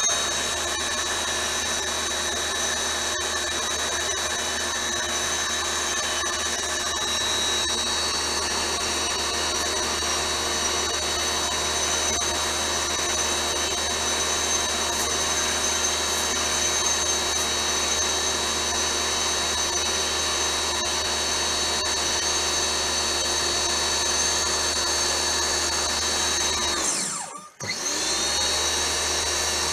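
Nilfisk C135.1 pressure washer running steadily with a high whine and low hum while it sprays water through a rotating soft-bristle brush head. About 27 seconds in it cuts out for under a second, its whine falling in pitch, then starts up again.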